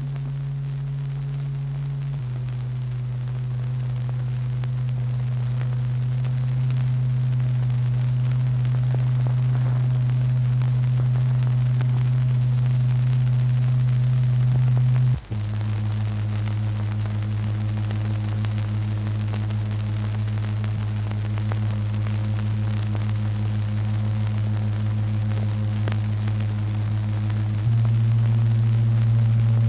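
A low, steady oscillator tone driving the vibrating liquid in a cymatics experiment. It steps slightly lower in pitch about two seconds in, breaks off for an instant and resumes lower about halfway, then steps up again near the end, slowly growing louder throughout.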